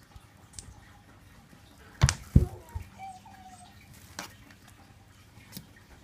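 Two dull thumps on a glass door, close together about two seconds in, followed by a softer knock and a few faint taps.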